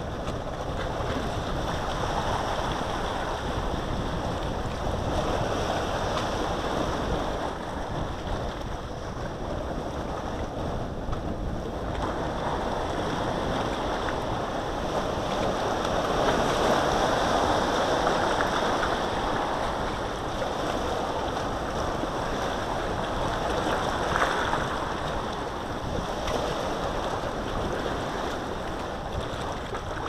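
Wind and sea waves: a continuous rush that swells and fades every few seconds, with the low rumble of wind buffeting the microphone.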